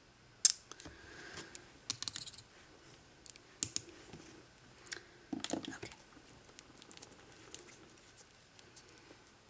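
Scattered sharp clicks and light taps of small plastic nail-art items (polish bottles, tools, press-on tips) being handled and set down on a hard work surface, irregular, the loudest click about half a second in.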